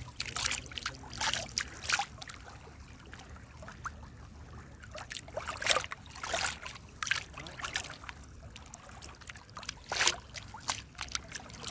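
Water splashing and lapping in irregular bursts, over a low steady rumble.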